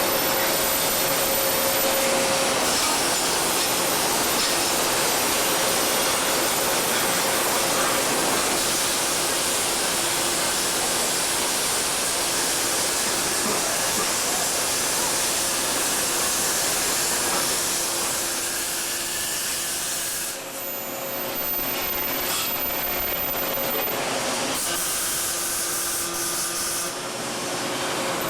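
Welding arc on an exhaust pipe, a steady hiss and crackle that breaks off briefly twice near the end as the weld is stopped and restarted.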